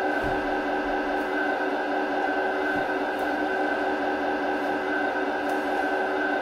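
Simulated truck diesel engine idling steadily, played by a GT Power electronic sound module through the RC truck's small speaker.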